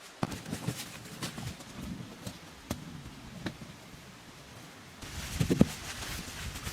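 Irregular light knocks, taps and rustling, with a cluster of louder dull thumps about five seconds in.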